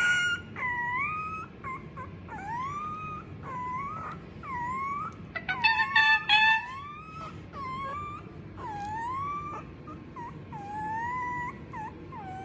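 Arctic fox kit whining in a run of short, high, sliding calls, roughly one a second, each dipping and then rising in pitch, which the owner calls singing. About six seconds in the calls come louder and closer together.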